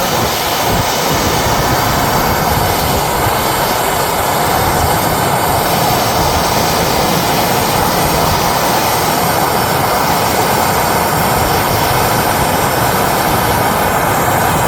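Handheld soldering torch flame burning steadily with an even rushing noise as it heats a thick copper pipe fitting before the solder is applied.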